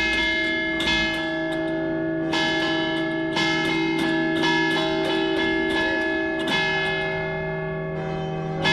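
Church bells ringing together, heard close up from inside the cathedral bell tower. Bells of several pitches strike roughly once a second, and their tones ring on and overlap between strikes.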